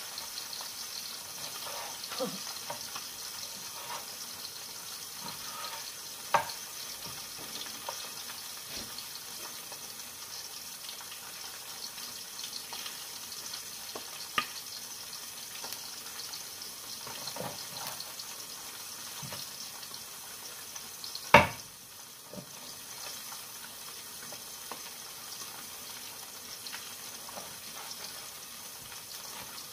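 Kitchen knife knocking on a wooden cutting board a few times while slicing octopus, with one much louder knock about two-thirds of the way through. Under it runs a steady hiss from a lidded pot of broth heating on the stove.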